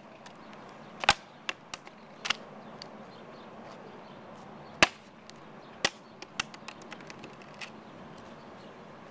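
A plastic water bottle being tossed and handled, giving sharp plastic clacks at irregular intervals, the loudest about a second in and near five seconds in, over a steady outdoor background hiss.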